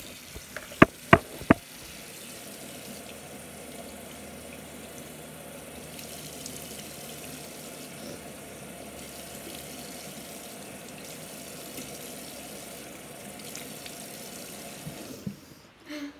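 Bathroom sink tap running steadily into the basin, then cut off about a second before the end. Three sharp knocks about a second in are the loudest sounds.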